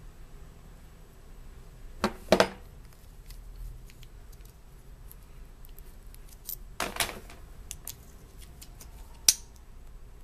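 A few sharp clicks and clatters of small hard objects being handled: two close together about two seconds in, a short cluster around seven seconds, and one sharp click near the end.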